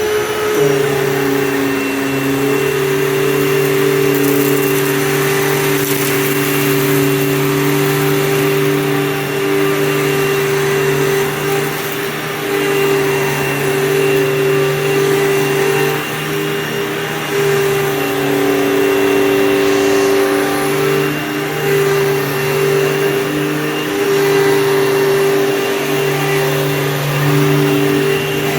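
2003 Hoover Fold Away upright vacuum cleaner running steadily, its motor hum shifting slightly in pitch and level every few seconds.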